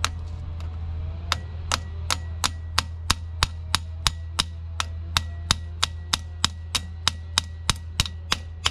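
Small ball-peen hammer tapping a gear puller clamped on a stuck cast-iron hand wheel, steel on steel, to shock the wheel loose from its shaft. The sharp strikes start about a second in and keep an even pace of about three a second.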